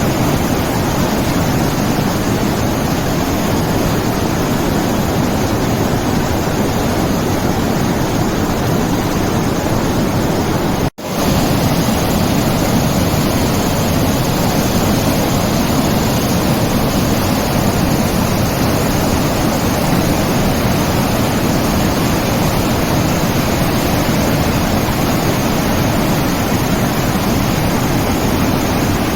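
Steady, loud rushing noise, like surf or white noise, even and without swells; it drops out for an instant about eleven seconds in and picks straight up again.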